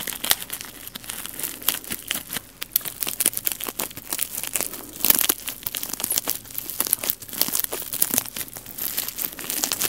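Close crinkling and crackling: a dense run of sharp crackles, loudest about halfway through.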